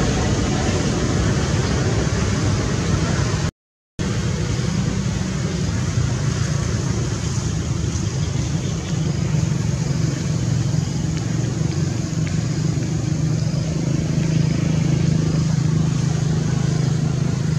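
A motor vehicle's engine running steadily, with a low hum that grows stronger in the second half. About three and a half seconds in, the sound cuts out completely for half a second.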